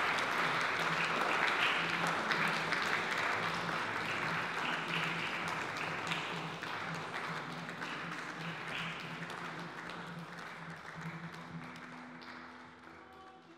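Audience applauding, a dense patter of clapping that fades gradually away.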